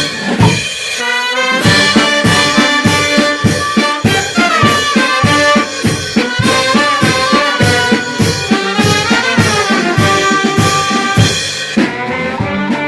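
Brass band playing a pasodoble, with trumpets, trombones and saxophones carrying the melody over a steady drum beat. The band thins out near the end.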